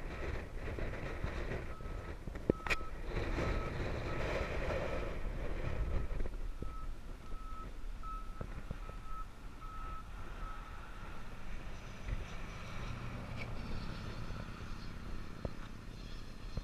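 A vehicle's reversing alarm beeping at one steady pitch, a bit more than once a second, stopping about ten seconds in, over a low outdoor rumble.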